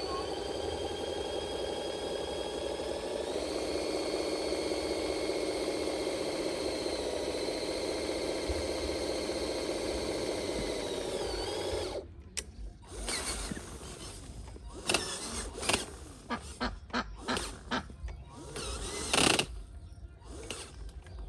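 Small electric motor of a radio-controlled construction model whining steadily, shifting up in pitch about three seconds in, then cutting off suddenly. Scattered knocks and clicks follow.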